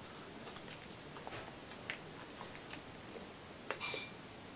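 Faint, irregular clicks of remote-control buttons being pressed to step through a set-top box's menus, with one short, louder sound near the end.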